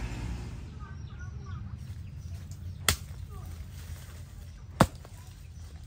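Two sharp knocks about two seconds apart, over a low steady hum.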